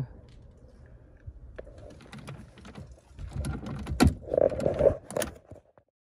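Handling noises around car-seat hardware: faint rumble, then a string of light clicks and knocks, with one sharp click about four seconds in and a few more just after; the sound cuts off abruptly near the end.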